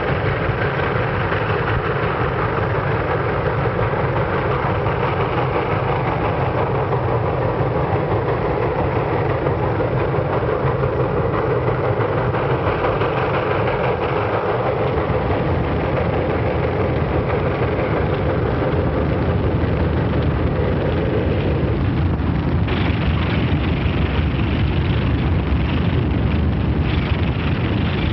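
Steam train running along the track: a steady, dense rumble and clatter of wheels and locomotive, shifting in tone about halfway through and again later on.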